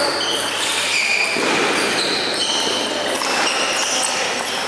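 Table tennis balls clicking off bats and tables in a busy, echoing sports hall, over a steady background of voices.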